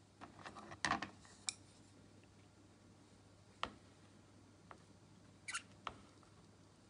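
Scattered faint clicks and light taps of wooden chopsticks against a plastic food container of pickled leaves: a quick cluster in the first second and a half, then a few single ticks.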